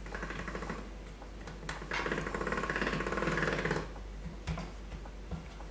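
Hand-cranked pasta machine being turned, its gears and rollers giving a fast, even rattle: briefly at first, then louder for about two seconds in the middle. A few light knocks follow near the end.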